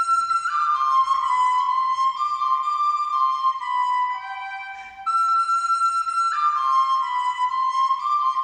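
Music: a solo flute-like melody in clear high notes that step up and down. The phrase fades, pauses briefly, and starts over about five seconds in.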